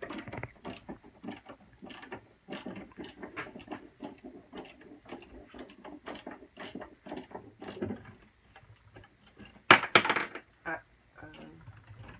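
Ratcheting hand tool clicking in an even rhythm, about three clicks a second, as screws are worked on the refrigerator's evaporator fan assembly. About ten seconds in comes a louder, brief metallic clatter.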